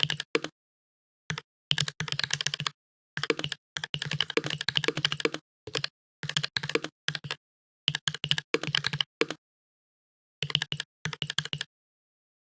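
Fast typing on a computer keyboard: quick runs of keystrokes in bursts, with short pauses between them, stopping near the end.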